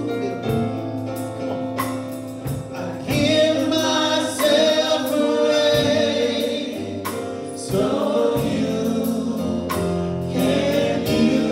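Gospel music: a man sings lead into a microphone with choir voices singing along.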